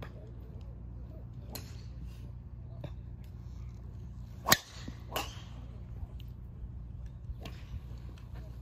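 Golf club striking a ball on a full swing: one sharp crack about four and a half seconds in. Fainter clicks of other shots on the practice range come before and after it.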